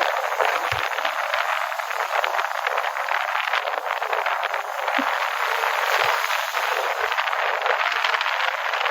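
Strong wind blowing, a steady rushing hiss with a crackle of small gusts running through it.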